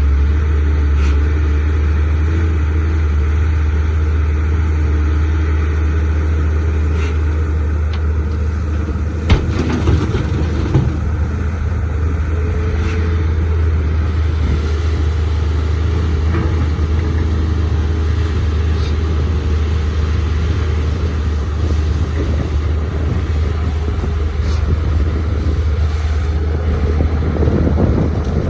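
Caterpillar 320C excavator's diesel engine running steadily while digging hard rock, with a couple of sharp knocks about nine and eleven seconds in.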